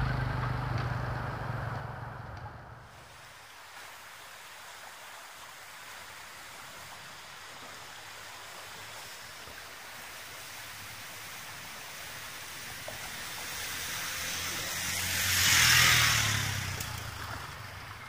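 Motor scooter riding through floodwater on a road. Over a steady rush of water, its small engine's hum grows louder and a loud splashing wash peaks as it passes close, about three-quarters of the way through, then fades.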